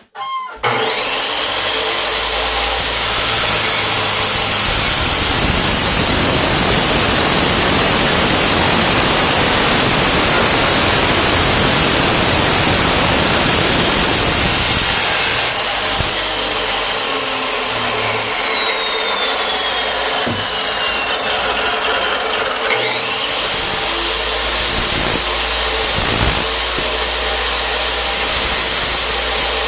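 Abrasive chop saw cutting heavy galvanized steel pipe. The motor starts with a rising whine and cuts with a loud grinding rush for about fifteen seconds. The blade then winds down with a falling whine, and the saw starts up again with a rising whine that holds steady near the end.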